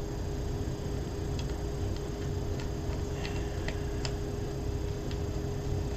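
Scattered light ticks and clicks from small M2 screws and a keyboard number-pad PCB being handled as the screws are fitted by hand, over a steady low hum.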